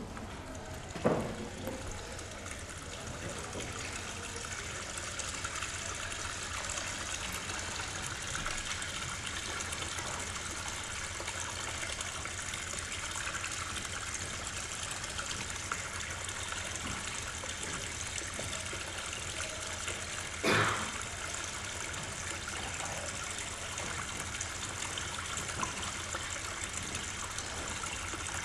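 Steady trickling, rushing water from the soundtrack of a projected film of a boat on a lake, with a sharp knock about a second in and another about twenty seconds in.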